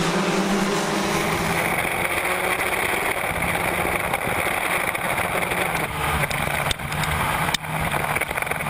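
Formula 1600 open-wheel race cars accelerating hard at a rolling race start. About two seconds in, the sound changes to one car's engine at full throttle heard from its onboard camera.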